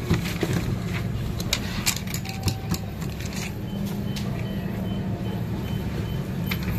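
A steady low mechanical hum, over which a rubber stamp is handled and pressed onto a paper stamp sheet with several short clicks and knocks. A faint, repeated high beep comes and goes in the middle.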